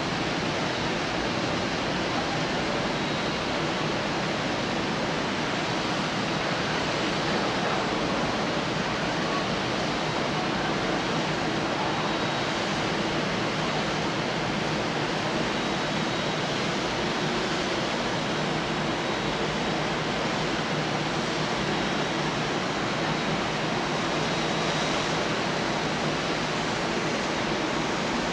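Steady, even rushing noise at a constant level with no distinct events, the kind heard on a windy high-rise balcony or from distant surf.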